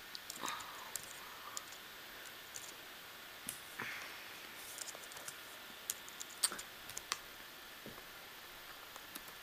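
Typing on a white MacBook's keyboard: faint, irregular key clicks with uneven pauses between them as a name is entered.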